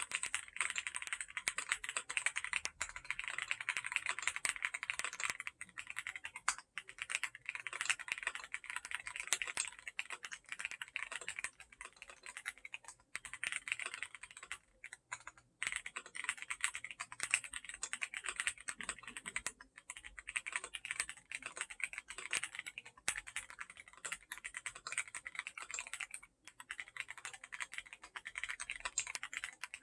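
Akko MOD007 mechanical keyboard with Akko CS Piano linear switches being typed on quickly and continuously, a dense run of keystroke clicks broken by a few brief pauses.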